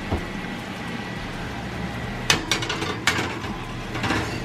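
Metal oven rack pulled out, then a glass baking dish set down and slid onto it: a few sharp clinks and knocks of glass on the wire rack, the loudest about two seconds in.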